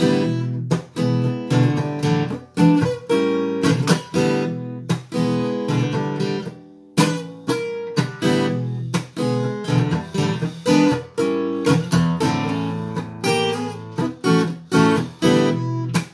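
Acoustic guitar strumming chords in a steady rhythm: an instrumental intro before the vocals come in.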